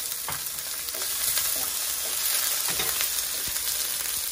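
Chopped onion frying in a little oil in a pan, a steady sizzle, with a few light knocks of stirring.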